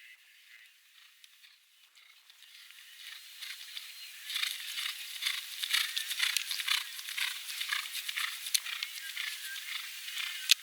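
Horse galloping on a grass cross-country course, its hoofbeats growing louder as it comes toward the microphone and turning into a quick run of strikes, with a single sharp knock near the end.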